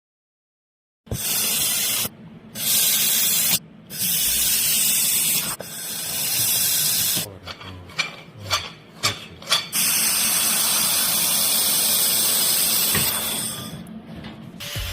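Handheld laser welder running on aluminium, a bright hiss that starts and stops in bursts of a second or two. Near the middle come several short separate pulses, then one long continuous pass of about four seconds.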